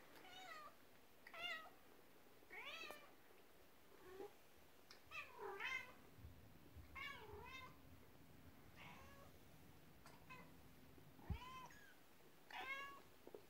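A young kitten mewing over and over, about ten short, thin, high-pitched mews a second or so apart. A brief soft bump about eleven seconds in.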